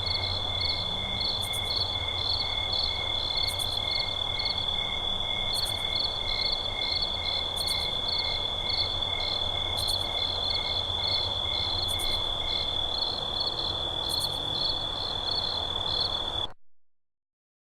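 Night-forest ambience of crickets and other insects trilling: a steady high drone with rapid, evenly pulsing chirps layered over it, and a very high chirp repeating about every two seconds. Frogs croak low underneath. It all cuts off abruptly about sixteen seconds in.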